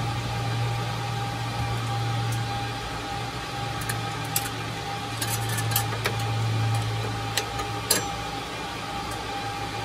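Scattered light clicks and taps as a PC expansion-slot adapter bracket is handled and fitted into the back of a computer case, over a steady low hum.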